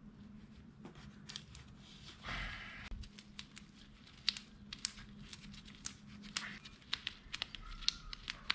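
Gloved hands handling a piece of JB Weld SteelStik epoxy putty and its plastic wrapper: a short tearing rustle about two seconds in, then a run of small sharp crackles as the putty is kneaded in nitrile gloves.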